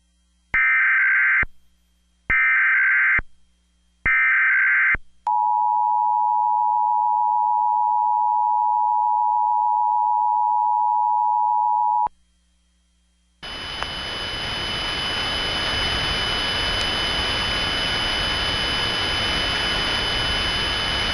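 Emergency Alert System test signal. Three one-second bursts of SAME header data come first, then the two-tone attention signal holds steady for about seven seconds and cuts off suddenly. After a second of silence, a steady hiss with faint steady high tones starts.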